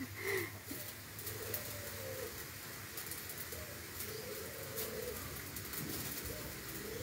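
Doves cooing: several low, drawn-out coos repeated every second or two.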